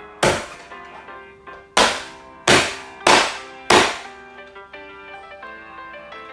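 A Chinese cleaver chops down through cooked chicken onto a cutting board: five heavy chops, the first alone and four more in quick succession about half a second to a second apart. Background music runs underneath.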